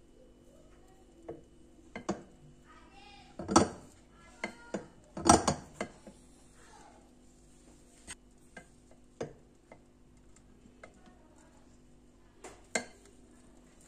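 Kitchen knife clinking and scraping against a glass serving dish while cutting through a layered tiramisu cake. The loudest knocks come about three and a half and five seconds in, followed by scattered lighter taps, with one more sharp clink near the end as a slice is lifted out.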